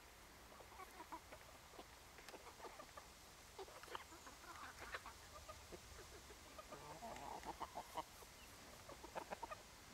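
A flock of German bush chickens clucking faintly while foraging: short, scattered clucks from several birds, with a busier run about seven to eight seconds in.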